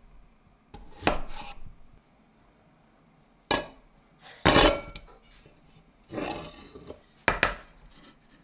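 A kitchen knife cutting through a potato onto a wooden cutting board about a second in, then several separate knocks and clatters as the potato slices go into a stainless steel bowl and the board is handled, the loudest about four and a half seconds in.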